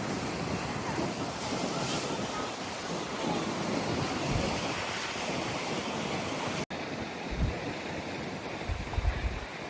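Wind-driven waves breaking on the bay shore in a steady wash, with strong wind buffeting the microphone in low rumbling gusts near the end. The sound cuts out for an instant about two thirds of the way through.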